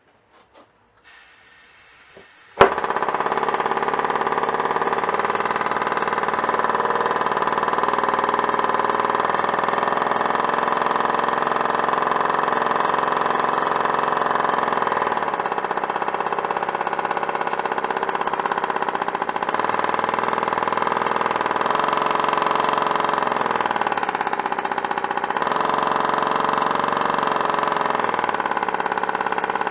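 3D-printed single-cylinder compressed-air engine starting abruptly after a click about two and a half seconds in, then running steadily at speed on compressed air, its pitch dipping slightly a few times as the speed wavers.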